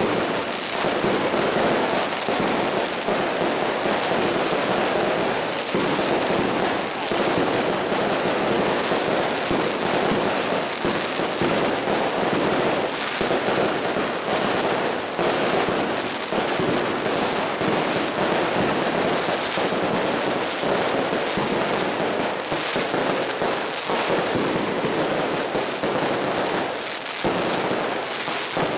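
Fireworks going off without a break: aerial shells bursting overhead amid a dense, continuous crackle of bangs and pops.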